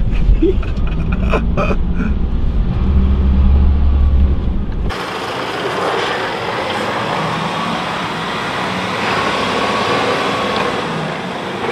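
Unimog's four-cylinder diesel engine running, a steady low drone heard inside the cab. About five seconds in, the sound changes abruptly to a steady hiss with the low drone gone, the Unimog now heard from outside as it drives.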